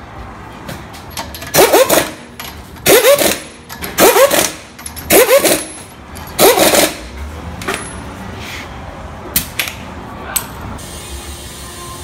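Cordless impact wrench running the lug nuts onto a car wheel: five short hammering bursts about a second apart, one per nut. A few light clicks follow.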